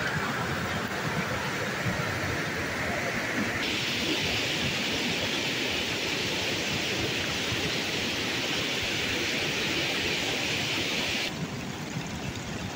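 Steady rushing of a rain-swollen stream running as white water over rocks. The hiss gets brighter about three and a half seconds in and falls back shortly before the end.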